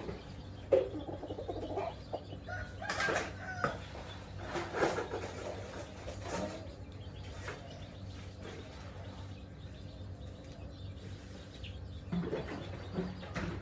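Chickens clucking and calling in scattered short bursts, busiest in the first few seconds and again near the end, over a steady low hum.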